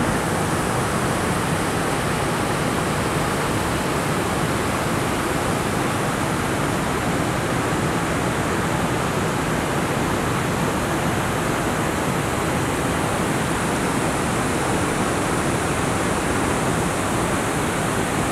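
Water rushing over a low river weir in a steady, even roar of white water. The river is running high with spring snowmelt.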